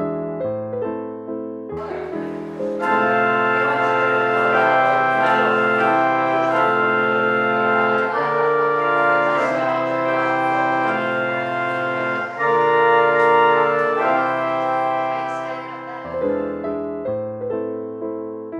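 Harrison and Harrison pipe organ, built in 1914, playing a slow sequence of held chords. About two seconds in, a fuller, brighter and louder sound comes in; near the end it falls back to a softer one.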